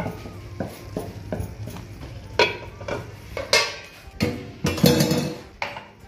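Stainless steel pot lids and a metal slotted spoon clanking and clattering against each other in a string of sharp metallic knocks, loudest in the middle of the stretch. Faint background music plays underneath.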